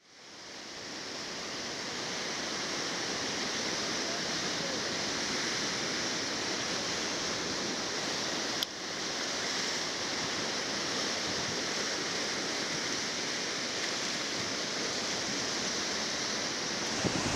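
Ocean surf: a steady wash of breaking waves fading in over the first couple of seconds, with a short click and brief dip just under halfway through.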